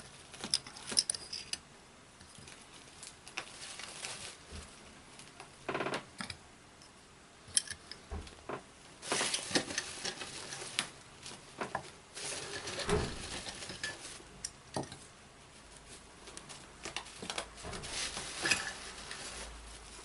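Small model figures and parts being handled and set down on a tabletop: scattered light clicks and taps, with a few short stretches of rustling.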